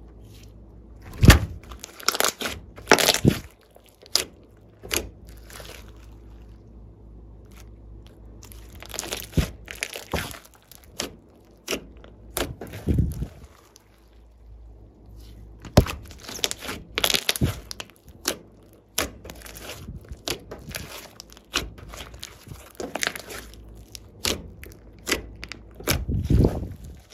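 Hands working glossy slime: irregular sticky crackles, pops and squelches in clusters, with short pauses between.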